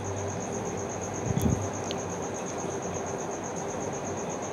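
A cricket chirping in a high, fast, even pulsing trill over a faint steady low hum, with a brief low rumble about a second and a half in.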